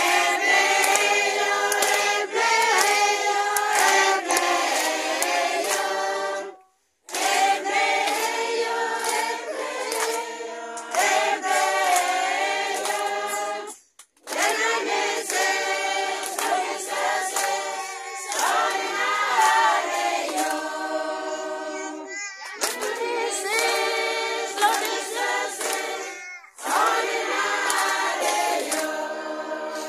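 A group of men and women singing together as a congregation, with some hand clapping. The singing comes in phrases, broken off sharply by brief silences several times.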